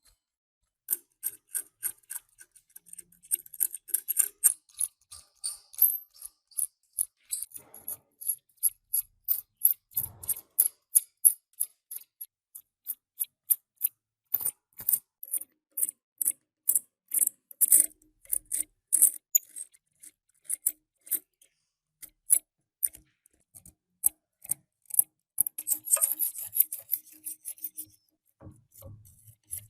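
Rhythmic abrasive hand strokes on rusty metal, about two a second, scraping or brushing at the rust of an antique ice crusher. The strokes sound high and rasping, with a dull knock about ten seconds in and again near the end.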